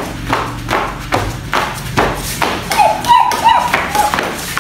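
Rubber inflatable hopper toy bouncing on a tile floor under a child, about three dull thuds a second.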